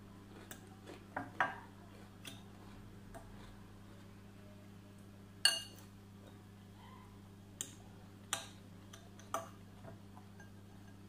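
A metal fork clinking against a glass bowl: a scattering of sharp taps, the loudest about five and a half seconds in, over a faint steady hum.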